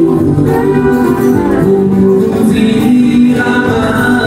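Two acoustic guitars strummed live with a man singing a country song into a microphone.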